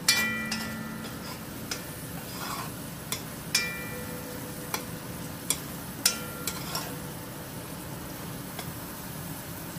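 Curry frying in oil in a pot with a low steady sizzle, while a metal spoon stirs it and knocks against the pot at irregular moments, some knocks ringing briefly.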